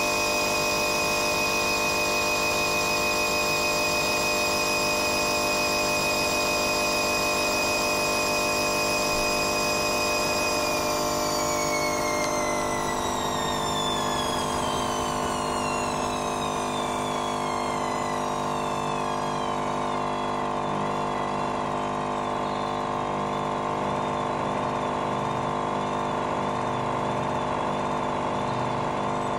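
Indesit W161 washing machine on a delicate spin: the motor whines steadily at spin speed, then about ten seconds in the whine falls steadily in pitch as the spin slows down.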